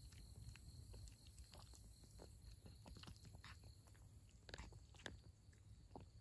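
Faint cat chewing and crunching dry kibble and wet food, a run of small irregular clicks.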